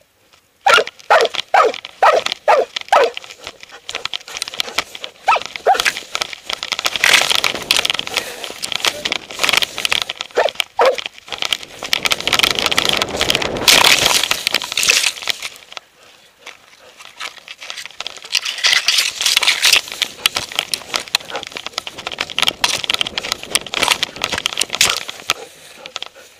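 Doberman barking close to the microphone: about six quick barks in the first few seconds and a few more later. Long stretches of tall grass swish and scrape against the dog-mounted camera as the dog pushes through it.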